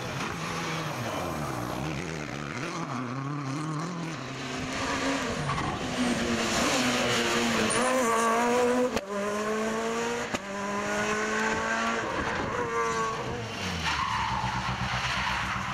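Rally car engines at full throttle, the note climbing and dropping as the cars rev through several gear changes, with tyres sliding on gravel.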